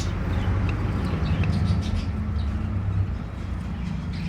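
Budgerigars chirping in short faint scattered calls over a steady low rumble.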